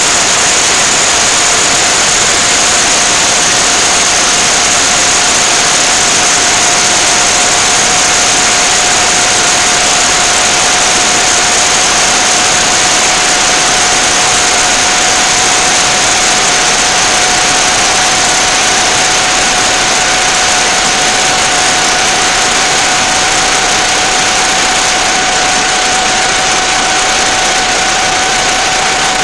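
Loud, steady hiss with constant high whining tones over it, unchanging and with no distinct events.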